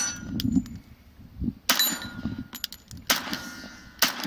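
Several gunshots fired at steel targets, with hits leaving a metallic ringing from the plates; the loudest shots come about two, three and four seconds in.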